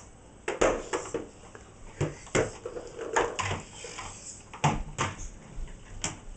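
Toy trucks knocking and clattering against a refrigerator door as they are pushed up it: irregular sharp knocks, about a dozen, with brief child vocal sounds among them.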